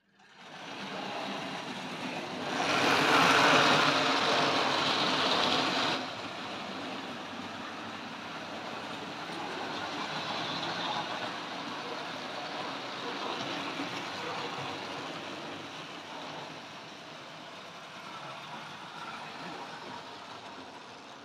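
Tri-ang Railways model trains running along the layout's track into the station: a steady rolling whirr from the locomotives and wheels on the rails. It is louder for a few seconds, from about two and a half to six seconds in.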